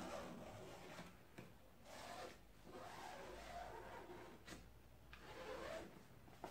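Faint rubbing and scratching of a marker pen drawn around a paper template onto foam sponge, in several strokes with short pauses between them.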